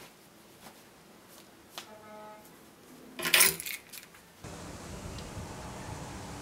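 A bunch of keys jangling sharply for about half a second, a little over three seconds in, after a few faint handling clicks. Near the middle it gives way to steady outdoor background noise.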